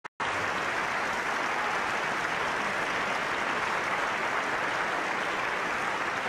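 A large audience applauding steadily in a concert hall.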